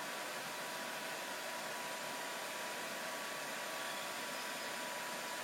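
Twin electric hoists of an overhead crane running together to raise both hooks: a steady whirring noise with faint steady tones.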